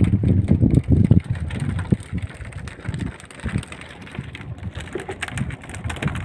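Wind buffeting the microphone on an open boat at sea, a gusty low rumble that is strongest for the first second or so and then eases to a rougher, quieter rush.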